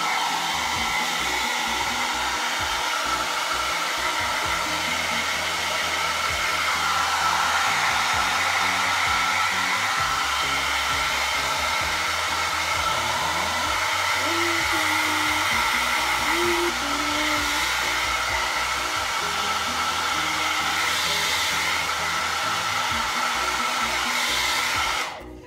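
Handheld electric hair dryer running steadily with a faint whine, then switched off near the end, the sound dropping away quickly.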